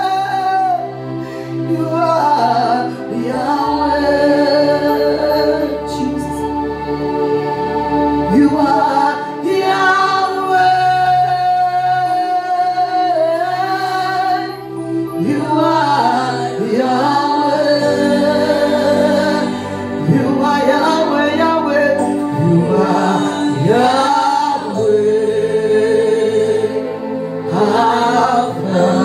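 Slow gospel worship music: a keyboard holding long steady chords under a singer's drawn-out, gliding vocal lines with no clear words.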